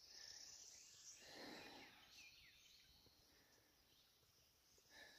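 Near silence: faint outdoor ambience with a steady high insect hiss and a few short, falling bird chirps. A soft rustle swells and fades about a second and a half in.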